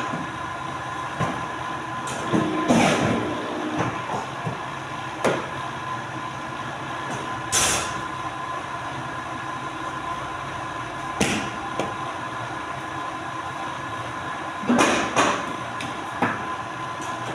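Polar 115 guillotine paper cutter running with a steady mechanical hum, while paper stacks are handled and pushed on its table, giving about six short sharp knocks and swishes spread through.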